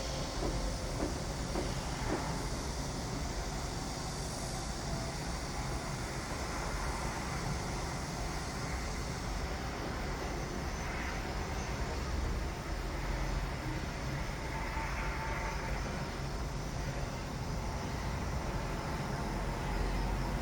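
Steady low rumble of construction-site machinery running continuously, with no distinct impacts and a few faint higher tones over the top.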